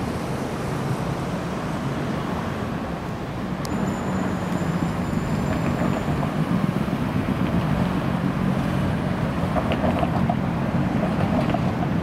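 Street traffic where cars and trams pass, a steady rumble that grows slightly louder a few seconds in. A faint high whine sounds for a couple of seconds about four seconds in.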